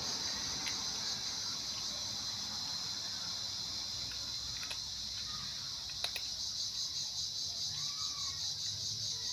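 Steady high-pitched chorus of insects buzzing throughout, with a faint meow near the end and a single sharp click about six seconds in.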